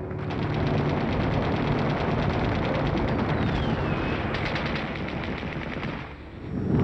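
Sustained rapid machine-gun fire, with a short falling whistle about three seconds in. The firing fades out near the end.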